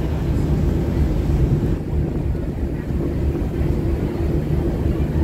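Boat's engine running steadily while underway, a low even drone heard on board.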